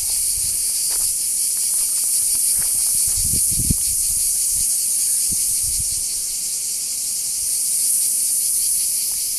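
Chorus of cicadas in olive trees, a loud, steady high-pitched buzz with a fine rapid pulsing. A few soft low thumps come near the middle.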